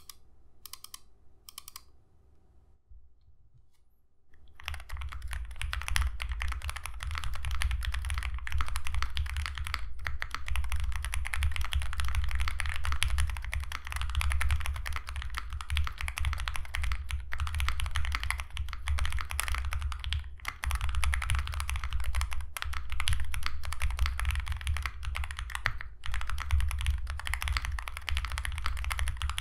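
Owlab Mr. Suit mechanical keyboard, built with a POM plate, lubed Lavender switches, GMK keycaps and foam in the case, being typed on fast and continuously. The keystrokes come in a dense, unbroken stream from about four seconds in, after a few isolated clicks. Its sound is soft and marbly.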